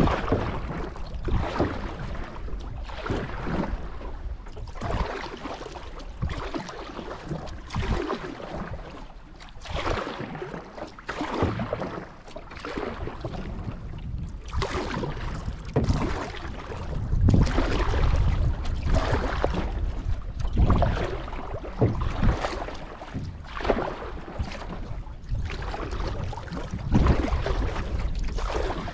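Canoe paddle strokes dipping and pulling through lake water, a watery swish about every second and a half in a steady rhythm.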